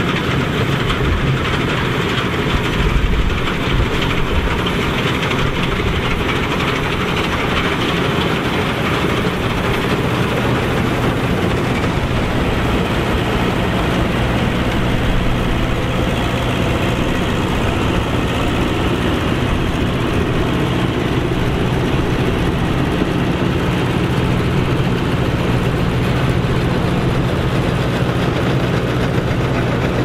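Massey Ferguson 87 combine harvester running steadily while harvesting barley: a constant engine note under the dense noise of the cutting and threshing mechanism at work.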